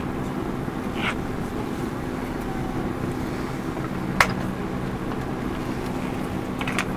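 Steady cabin hum inside a Bombardier Dash 8-Q400 turboprop airliner on the ground, with two steady low tones under it. A sharp click about four seconds in, and a fainter one about a second in.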